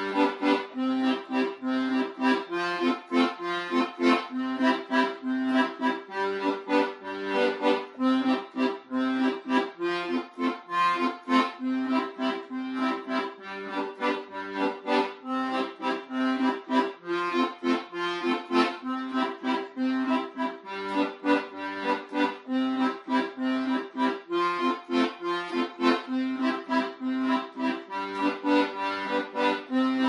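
Background music: an accordion-led tune with sustained reedy notes and a quick, even pulsing beat.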